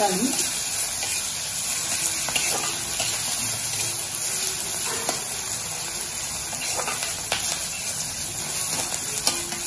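Chopped onion, green chilli and tomato sizzling in hot oil in a kadai, stirred and scraped with a wooden spatula, with scattered light clicks of the spatula against the pan.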